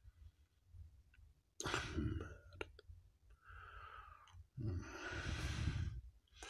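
Soft breathy noise and handling of a comic book close to the microphone, in a few separate bursts, with a quick run of light clicks in the middle.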